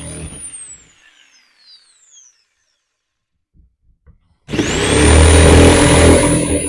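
Corded jigsaw cutting through wall framing: the motor winds down with a falling whine, stops for a few seconds, then starts again about four and a half seconds in, its whine rising quickly to full speed, and runs loudly with the blade chattering through the wood.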